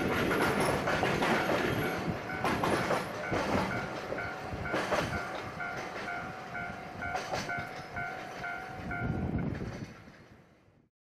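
Freight train of container wagons rolling past, wheels clacking over the rail joints with a steady rumble, while a ding repeats over and over. The sound fades out near the end.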